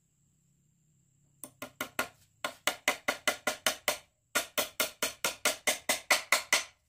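Rapid series of sharp knocks on wood, about five a second, in two runs with a short break near the middle.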